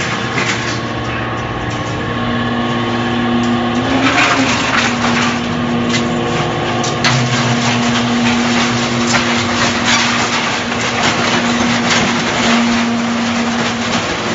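Y81F-4000 hydraulic scrap-metal baler running, with a steady mechanical drone and irregular metallic clatter and scraping. A steady hum comes in about two seconds in, wavers briefly around four seconds, and holds until just before the end.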